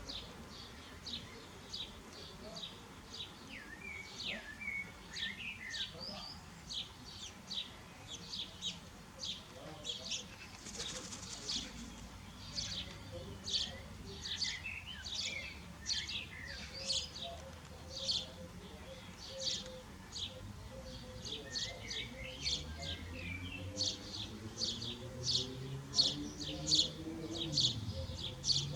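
Small birds chirping: short, high chirps repeated about twice a second, mixed with some lower, sliding calls. Near the end a low sound slowly rises in pitch underneath.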